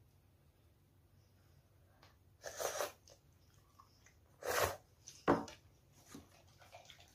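A child slurping instant ramen noodles: two noisy slurps about two seconds apart, then a short sharp knock, followed by faint chewing sounds.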